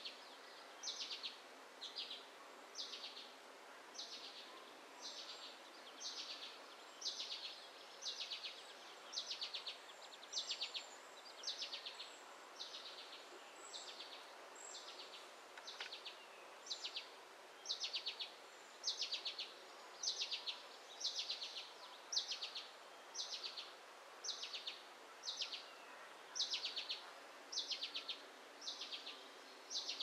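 A high, buzzy trilled call from a small animal, repeated steadily about once a second.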